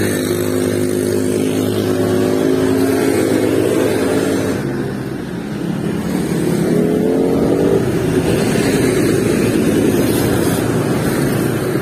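A motor vehicle's engine running close by, its pitch steady for about four seconds, fading briefly, then rising as it accelerates around seven seconds in, followed by a rushing noise.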